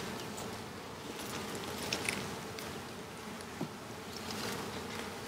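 Honeybees buzzing steadily around the hive, with a couple of light knocks as hive boards are handled.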